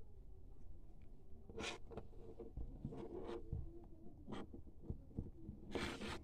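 Faint handling noise: scattered clicks and short rustles as hands move the small speaker, its cable and a phone while the audio plug goes in, with a louder brushing rustle near the end.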